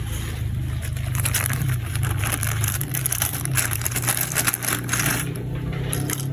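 Plastic toy parts and packaging being handled: dense clicking, rattling and crinkling over a steady low hum.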